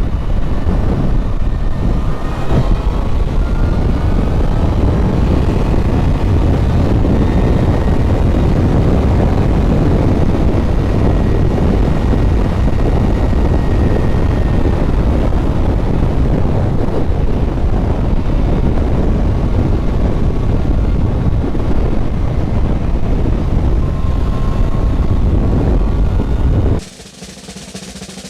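Motorcycle riding at highway speed recorded through a helmet lavalier mic into a GoPro: heavy wind rush, with the engine note rising faintly now and then as it pulls. The sound cuts off sharply near the end.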